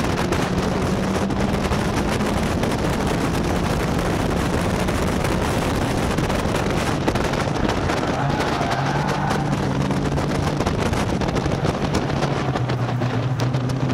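Caterham Seven race car at speed: heavy wind rushing over the exposed microphone, with the engine running hard underneath. The engine note shifts pitch a few times as the car drives through the corners.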